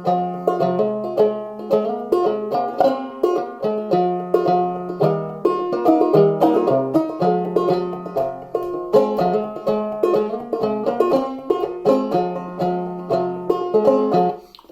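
Five-string banjo played clawhammer style in open G minor tuning (gDGBbD): a steady run of plucked melody notes with brushes and hammer-ons, stopping suddenly at the end.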